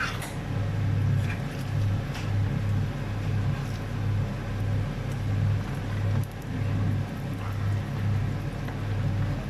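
Rice frying in oil in a pot, with a low hum underneath that pulses regularly, about every two-thirds of a second.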